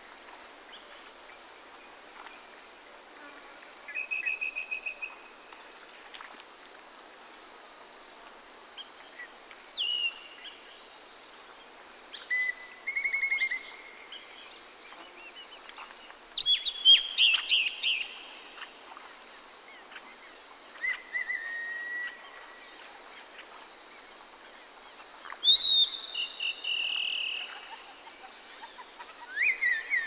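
Woodland ambience: a steady, high insect drone with a faint pulse, with birds calling every few seconds over it: short trills, quick downward-sweeping notes and whistles. The loudest calls come about halfway through and again near the end.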